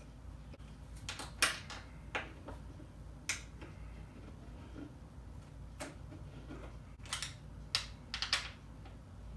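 Scattered sharp metallic clicks and clinks, some in quick little clusters, from an L-shaped Allen wrench being worked on the screws that fasten a gaming chair's seat mechanism.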